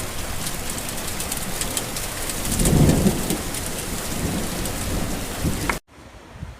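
Steady heavy rain with a low rumble of thunder swelling and fading about three seconds in. Near the end the rain cuts off abruptly, giving way to a much quieter steady hiss.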